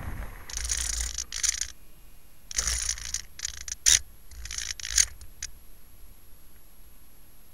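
FPV-Raptor 1600 model plane skidding through long grass after landing, its fuselage scraping and rasping against the grass in four or five short bursts before it comes to rest about five seconds in.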